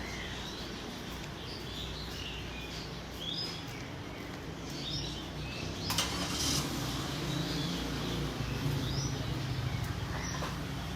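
Small caged birds in a bird shop chirping, many short high calls scattered throughout over a steady low background hum, with one sharp click about six seconds in.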